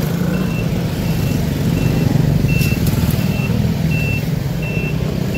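A box truck's reversing alarm beeping steadily, short high beeps about three every two seconds, over the low running of the truck's engine as it backs up.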